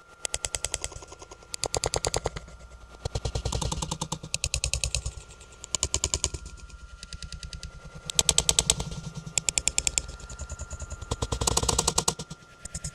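A clattering sound effect: rapid rattling clicks in bursts of half a second to a second, repeating with short gaps, over a faint steady tone.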